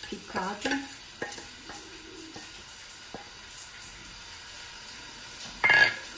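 Chopped onion sizzling softly in hot olive oil in a stainless steel pot while a wooden spoon stirs it. There are a few light knocks of the spoon against the pot, then a louder clatter near the end.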